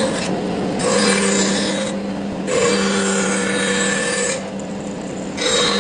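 A woodworking power tool rasping against wood in repeated passes, each lasting one to two seconds with brief easings between, over a steady motor hum.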